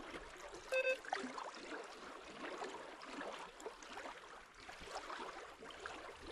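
Faint outdoor ambience of soft water sounds and small scattered clicks. Just under a second in there is a brief steady pitched tone.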